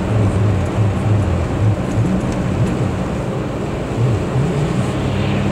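A car driving: steady engine and road noise, with a low hum that shifts up and down in pitch.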